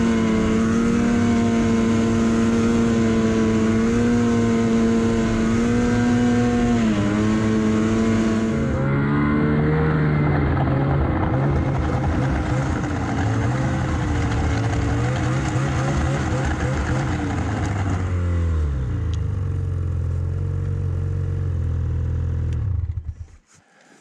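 Snowmobile engine running hard at high, steady revs. About a third of the way in its pitch drops and wavers as the throttle changes, then falls to a lower steady note, and the engine cuts off suddenly near the end.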